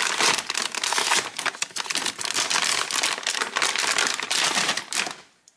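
Metallic anti-static bag crinkling and crackling as it is peeled open and pulled off a graphics card, stopping about five seconds in.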